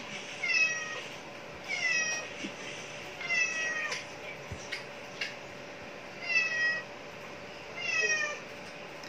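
Cat meowing five times: short, high-pitched meows, each falling in pitch, spaced a second or more apart.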